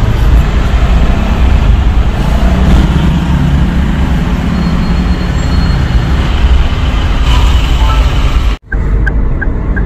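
Steady road-traffic noise heard from inside a car in heavy, slow traffic, a low rumble of engines around it. It cuts out for a moment near the end, then a few short high beeps follow.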